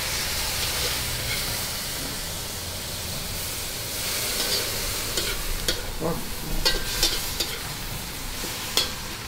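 Vegetables sizzling in a hot steel wok as a little stock is ladled in, a steady hiss. A metal ladle stirs and knocks against the wok several times in the second half.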